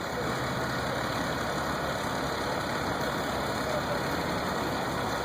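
A vehicle engine idling steadily, with a constant rushing noise over it.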